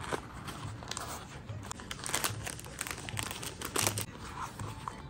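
Packaging crinkling and rustling as it is handled, with irregular small crackles and clicks.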